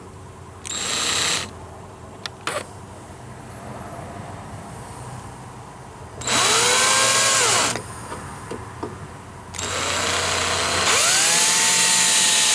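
Electric drill boring out a spot weld in the steel cab floor. It runs in three bursts, each with a whine that rises as the motor spins up and then holds steady: a short one about a second in, a longer one around six seconds, and a long run from about ten seconds on.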